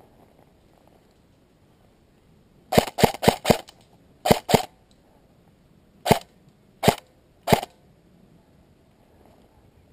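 Airsoft rifle firing single shots: a quick run of four, then a pair, then three more spaced apart.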